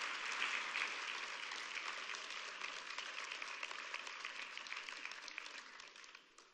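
Congregation applauding, a dense patter of many hands clapping that slowly fades and dies away near the end.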